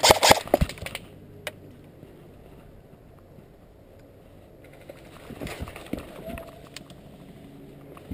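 Close, irregular sharp clicks and rustling from an airsoft player's rifle and gear. A dense cluster comes in the first second, a lone click follows shortly after, and a second cluster comes about five to seven seconds in.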